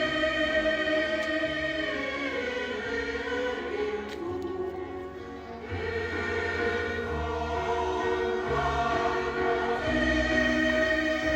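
Choral music with sustained, swelling voices over a low bass, easing down for a moment in the middle before building again.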